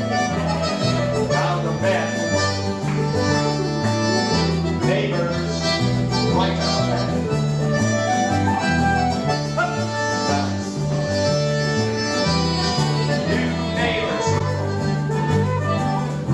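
Live contra dance band playing an upbeat dance tune, with a steady bass line that alternates between notes on every beat under the melody.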